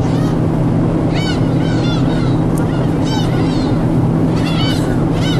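Gulls calling in quick groups of short, arched squeals as they crowd in to be hand-fed, over a steady low rumble.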